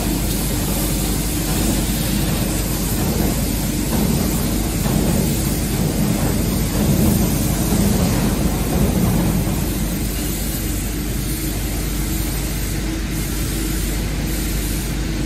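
Electric pallet stacker's hydraulic lift pump motor running steadily with a constant hum as the triplex mast moves, a little stronger in the middle.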